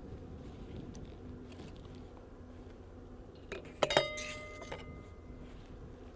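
Metal clinking and a sharp clank that rings on briefly, about four seconds in: a round being loaded into a Carl Gustaf M3 recoilless rifle.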